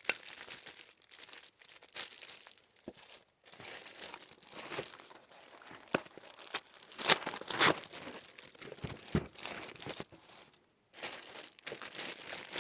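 Packaging being handled and unwrapped: irregular crinkling and rustling with sharp crackles, loudest about six to eight seconds in.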